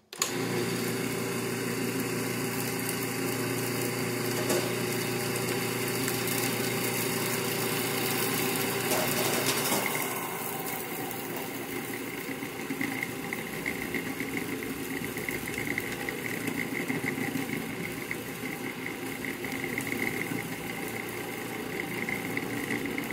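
Food processor motor running continuously, its blade mixing pie-crust dough until the dough gathers into a ball. The sound is steady, then changes and gets a little quieter about ten seconds in.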